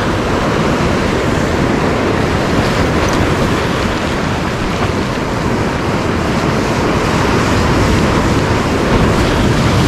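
Ocean surf washing and breaking over a rock ledge, a steady rush of water, with wind buffeting the microphone.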